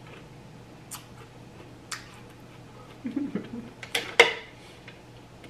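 Knife clicking against the cutting surface as a Saturn peach is sliced: a few sharp single clicks, with two loud ones close together about four seconds in.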